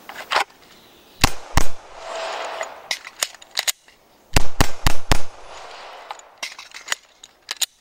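Pistol shots, each a sharp crack, fired singly and in short quick strings; the loudest is a rapid run of four about halfway through.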